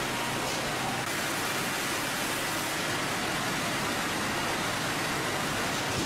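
Sawmill machinery running: a steady, even noise without distinct strikes or rhythm.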